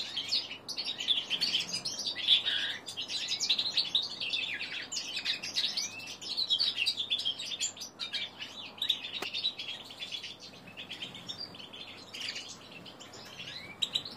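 Young male linnet × canary hybrid singing its rambling, unfinished practice song (subsong): a fast, unbroken stream of high chirps, twitters and short trills, softer in the second half.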